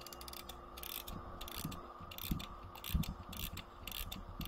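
Mechanical clicking from a wind-up 'pecking hen' alarm clock's works: sharp ratchet-like clicks, unevenly spaced at about three a second, over a faint steady hum.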